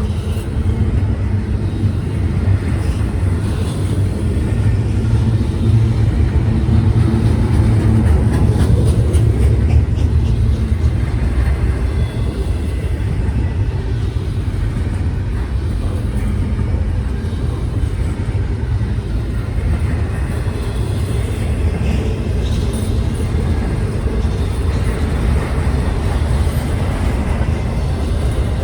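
A train going by with a steady low rumble, faint clicks and rattles over it.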